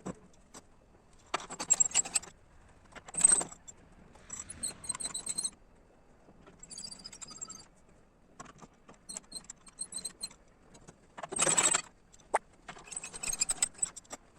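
Repeated short bursts of light metallic jangling and clattering, about eight in all, each under a second long with quiet gaps between: metal parts being handled and knocked together.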